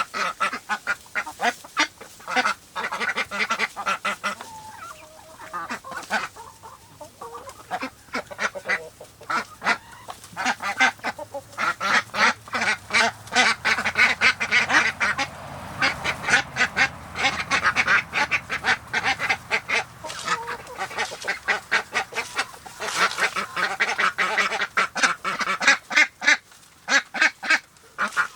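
A flock of farm waterfowl calling almost nonstop in rapid runs of quacks and honks, with a couple of brief lulls.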